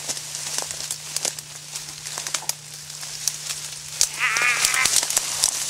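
Twigs and dry branches crackling and rustling as someone pushes through brush. About four seconds in comes a short, wavering bleat-like call lasting under a second.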